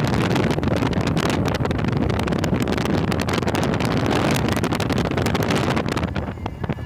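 Wind rushing in through an open window of a moving car and buffeting the phone's microphone, over the car's road noise. It eases briefly about six seconds in.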